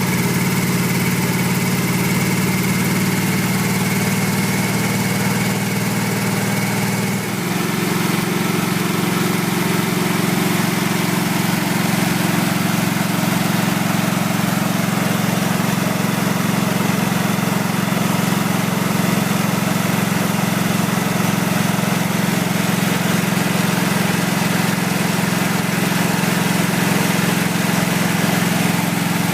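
Generator engine running steadily on wood gas from a wood gasifier. About seven seconds in, the note dips briefly and then settles into a slightly different steady tone.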